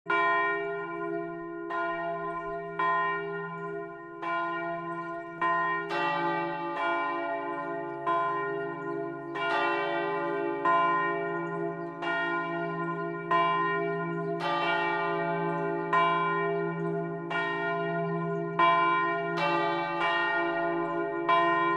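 Church bells pealing: several bells struck one after another in an irregular sequence, about one strike a second, each ringing on and overlapping the next over a steady low hum.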